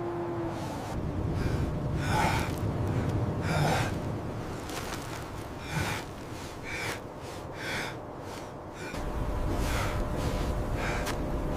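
A person breathing heavily in ragged gasps, roughly one breath a second, over a low steady rumble that swells about nine seconds in.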